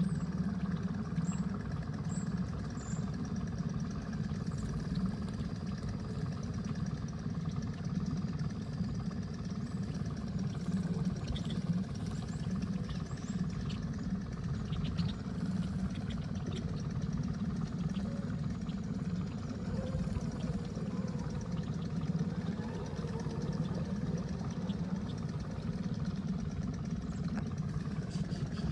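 Small boat motor running steadily at an even speed throughout.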